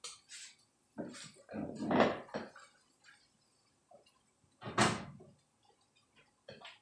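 Frying pans knocking and scraping against the grate of a gas stove as they are lifted and set back down, with one loudest sharp clank about five seconds in.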